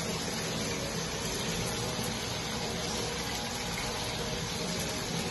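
Potato chips deep-frying in oil: a steady, even sizzle.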